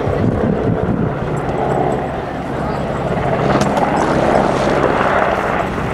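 Royal Navy AgustaWestland Merlin helicopter in flight, banking hard: a steady, loud rotor and turbine sound from its three Rolls-Royce Turbomeca RTM322 turboshafts, swelling a little about four seconds in.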